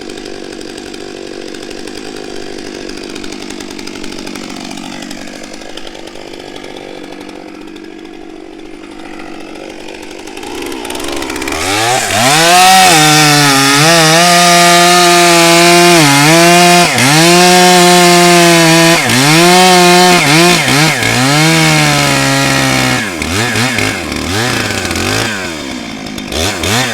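Two-stroke chainsaw running quietly at first. About ten seconds in it goes to full throttle and cuts through a log, its pitch dipping and recovering each time the chain bogs under load. Near the end it is let off in a few short revs.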